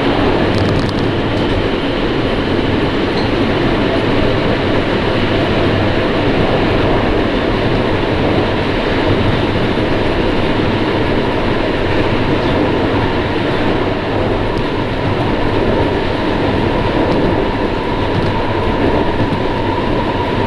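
Sapporo Municipal Subway Namboku Line train running on its rubber tyres, heard from inside the car: a steady rumble and hum. A whine comes up over it near the end.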